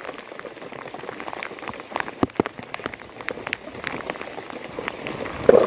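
Heavy rain falling, with many individual drops striking close by as sharp, irregular ticks over a steady hiss.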